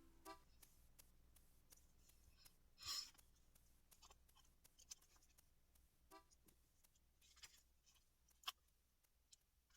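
Faint desk-work sounds of paper craft: scattered small clicks and short paper rustles, the loudest rustle about three seconds in and a sharp click near the end.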